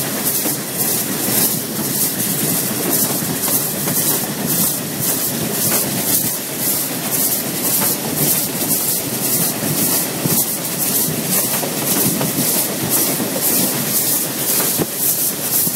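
Narrow-gauge steam tank locomotive 298.102 running, heard from on board: a steady rhythm of exhaust beats, about two a second, over the rumble and clatter of its wheels on the track.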